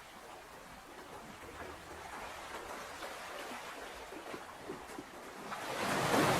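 Ocean surf: a steady wash of water with light fizzing, swelling into a louder breaking wave near the end.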